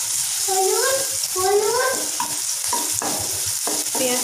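Sliced onions frying in mustard oil in a non-stick kadai give a steady sizzle, while a wooden spatula stirs them and knocks and scrapes against the pan. Short pitched calls that rise in pitch sound several times over the frying.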